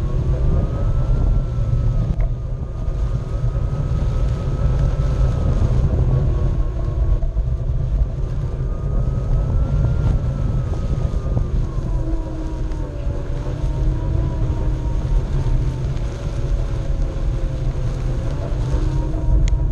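Onewheel electric board riding across grass: the hub motor's whine drifts up and down in pitch with speed, under heavy wind rumble on the microphone.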